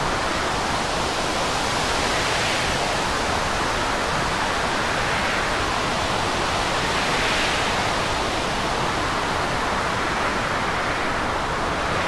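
Storm wind and rough sea: a steady rush of noise that swells about every five seconds.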